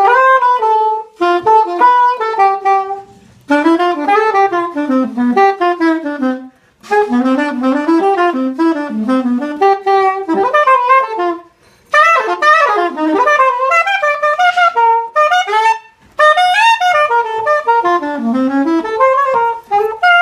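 Conn-O-Sax, a straight saxophone in F with a bulb bell, played in fast, flowing jazz runs: about five quick phrases with short breaks for breath between them.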